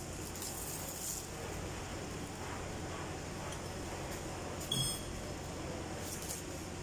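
Steady workshop hum with a few faint clicks of hand tools on the engine's valve gear, and one short metallic ping about five seconds in.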